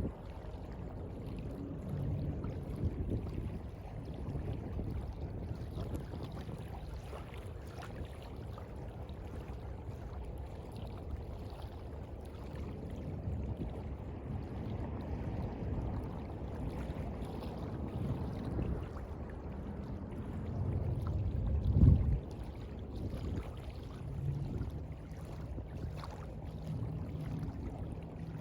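Sea water washing and lapping with a low rumble, swelling to one louder surge about three-quarters of the way through.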